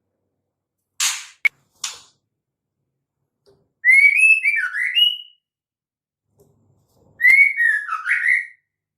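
Female white-rumped shama calling: two similar whistled phrases of gliding, up-and-down notes, one near the middle and one near the end. They follow two short harsh rasps and a click about a second in.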